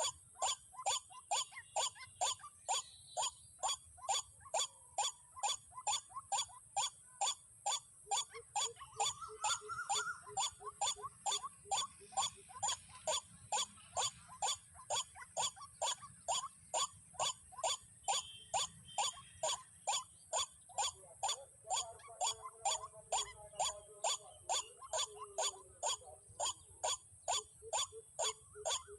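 White-breasted waterhen (dahuk) call repeated in a very even, unbroken rhythm, about two and a half calls a second, as played from a bird-trapping caller to lure waterhens. A steady high hiss sits beneath it.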